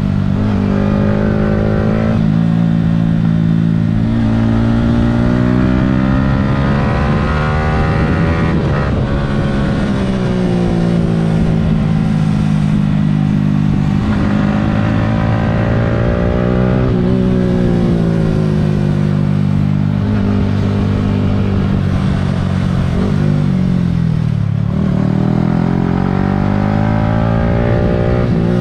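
Yamaha R15 V3's 155 cc single-cylinder engine heard from on board, revving hard through the gears: its pitch climbs under acceleration and drops when the throttle is rolled off or a gear is changed, again and again.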